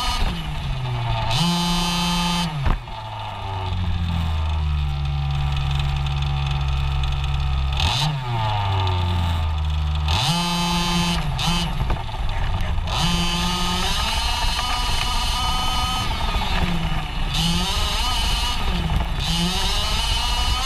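Losi 5ive-T RC truck's 26cc two-stroke gas engine, heard from on board, revving up and down over and over as the truck is driven, settling at a low steady speed for a few seconds near the middle. A single sharp knock comes about three seconds in.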